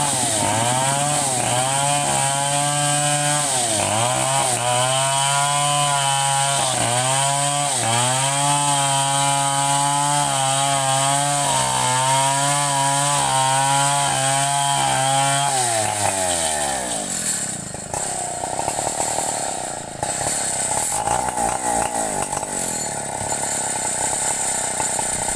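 Two-stroke chainsaw engine running at high revs, its pitch dipping briefly again and again as it cuts. About sixteen seconds in the pitch falls away as the throttle is released, followed by a rougher noise with no steady pitch.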